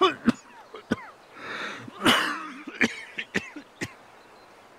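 A man coughing into his hand in short sudden bouts, the loudest about two seconds in.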